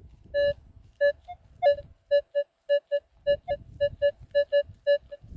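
Metal detector's target tone: short electronic beeps at a single mid pitch, repeating as the coil passes back and forth over a buried target, about three a second from two seconds in. The detector reads it as a good-conductivity target.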